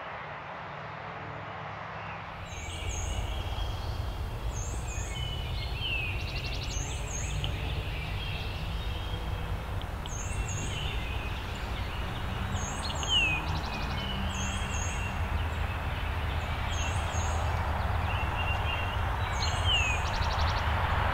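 Songbirds singing in spring woods: short high chirping phrases repeated every second or two and a descending whistled note every several seconds, over a steady low rumble, with one brief louder sound about 13 seconds in. The sound grows louder a couple of seconds in.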